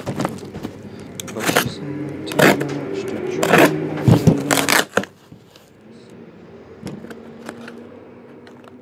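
Cardboard card boxes being handled and torn open, with a run of sharp rips and scrapes over the first five seconds, then quieter, sparser handling noises.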